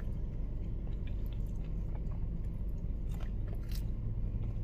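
Close-up chewing of a mouthful of soft pizza sub, with a few faint wet mouth clicks, over a steady low hum.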